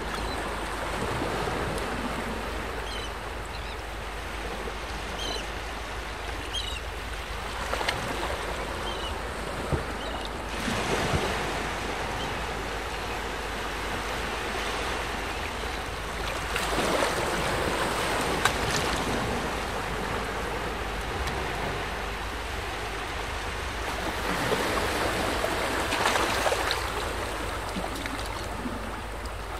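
Small waves lapping on calm shallow water, mixed with wind, swelling louder a few times.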